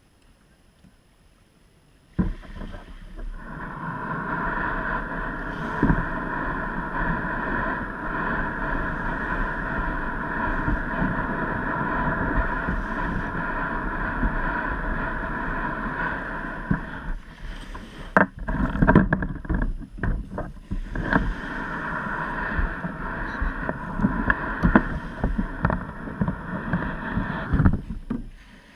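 A boat's motor running steadily, a drone with several held tones over a low rumble. It starts suddenly about two seconds in, and knocks and bumps break through it between about 17 and 21 seconds.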